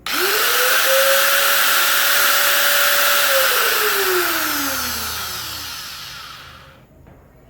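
Electric angle grinder switched on: its whine climbs quickly to full speed and holds steady for about three seconds, then it is switched off and winds down with a falling pitch over a few seconds. It runs smoothly with a bicycle-tube rubber washer in place of its damaged original, the rotor no longer touching the body.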